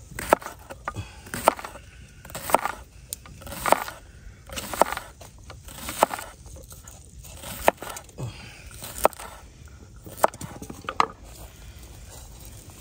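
A knife slicing a peeled onion into rings on a wooden cutting board: a crisp crunch and a knock of the blade on the board about once a second. The strokes stop near the end.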